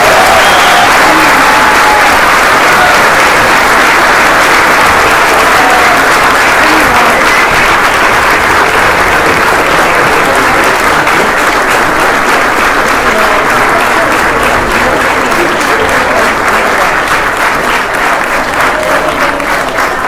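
A large audience applauding loudly in a hall, with a few voices calling out. Toward the end the clapping thins into more separate claps.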